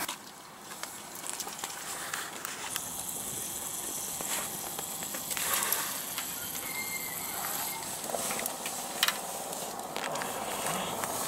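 Faint scattered clicks and rustles of fishing tackle and a towel being handled on a concrete pier, over a steady outdoor hiss, with one sharper click about nine seconds in.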